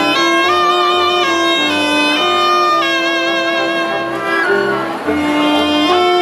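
Cobla playing a sardana: tenores and tibles, trumpets, fiscorns and double bass playing sustained melodic lines, with a brief dip in loudness about five seconds in.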